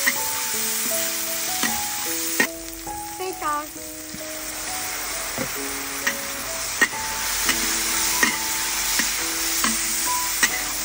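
Lemongrass, garlic and chili frying with a steady sizzle in a large metal wok, while a metal spatula scrapes and clicks against the pan as it stirs. The sizzle dips for a few seconds in the middle and then comes back.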